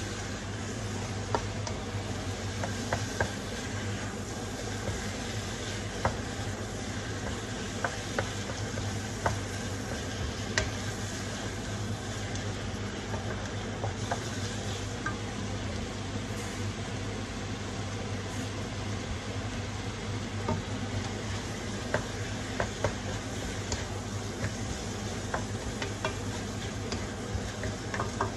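Minced meat and diced onion frying in a nonstick wok, sizzling as a wooden spatula stirs them, with scattered taps and scrapes of the spatula on the pan. A steady low hum runs underneath.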